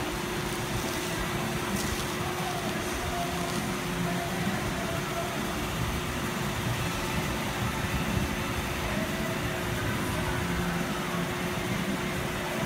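Steady mechanical hum and hiss of background machinery, with one constant low tone and no strokes or changes.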